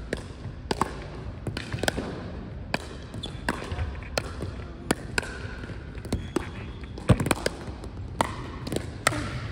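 Pickleball rally: paddles striking a plastic ball and the ball bouncing on a hardwood gym floor, a quick, irregular run of sharp pops and taps about two a second, the loudest just after seven seconds in.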